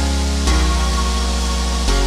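Background music of held chords over a deep bass, the chord changing about half a second in and again near the end.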